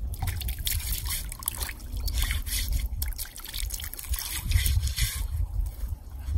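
Water trickling and dripping off a flat stone slab as it is lifted out of a muddy puddle, over a steady low rumble.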